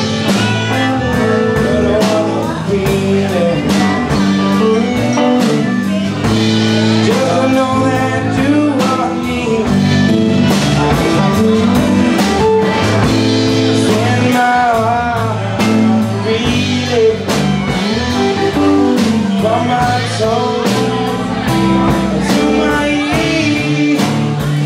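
Live blues-rock band playing: a melodica carries a bending melodic line over strummed acoustic guitar, electric bass and drums.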